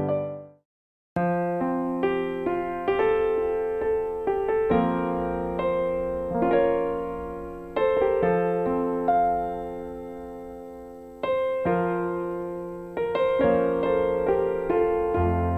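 Music: the end of one song drops to complete silence for about half a second. Then a solo piano intro starts, with chords struck every second or so and left to ring and fade.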